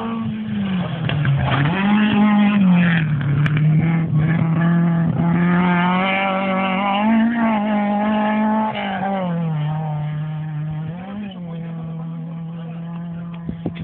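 Rally car engine running hard on a gravel stage, its note rising and falling again and again as it works through the bends. Loudest through the middle, then fading near the end.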